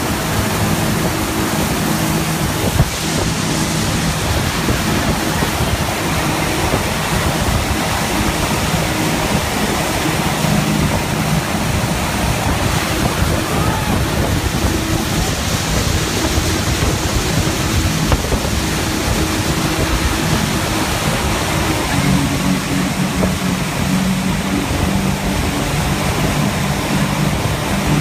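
Motorboat running at speed: wind rushing over the microphone and the wake churning behind the stern, with a steady engine hum underneath that comes and goes.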